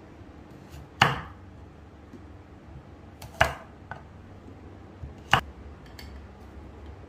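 Kitchen knife chopping through broccoli stems onto a wooden cutting board: three sharp knocks, about two seconds apart, the first the loudest.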